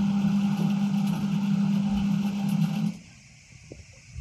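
Engine running steadily at a constant speed with a strong low hum, cutting off abruptly about three seconds in.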